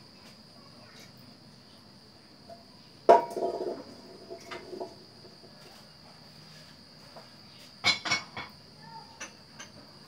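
Metal cookware handled on a gas hob: a loud clank about three seconds in that rings for over a second, then a black frying pan set down on the burner grate with two sharp clacks near the end, followed by a few light ticks. A steady high-pitched tone runs underneath.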